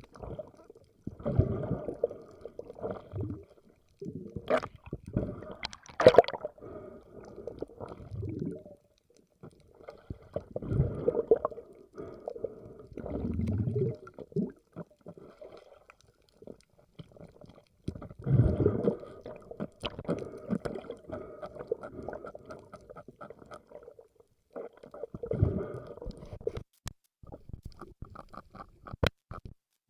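Muffled gurgling and sloshing of water in irregular surges with short pauses, broken by a few sharp clicks.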